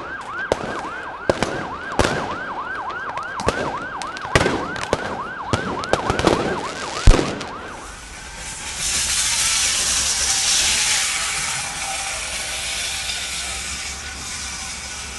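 A fast yelping siren rising and falling about two to three times a second, with a string of sharp firework bangs over it, the loudest about seven seconds in. The siren stops at about eight seconds and a loud rushing hiss takes over.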